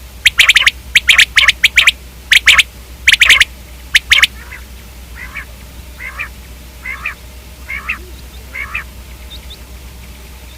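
Common quail calling: loud, harsh rasping calls in quick clusters for the first four seconds, then softer calls repeating about once a second until near the end.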